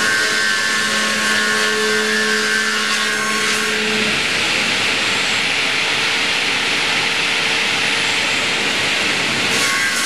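DKP6 double-blade circular sawmill running and cutting timber: a loud, steady sawing noise with a humming tone that changes about four seconds in.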